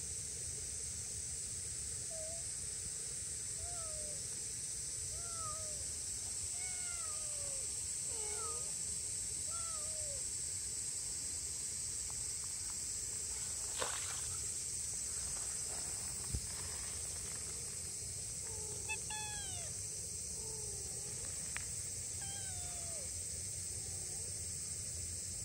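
A two-month-old gray tabby-and-white kitten meowing in a string of short, high calls, about one a second at first, then a few more near the end, over a steady high hiss. The kitten has been left behind by its mother and is calling anxiously.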